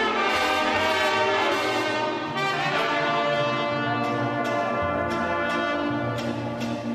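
Brass band music playing held, chord-like notes. From about four seconds in, a steady beat of sharp percussive strikes, about three a second, joins it.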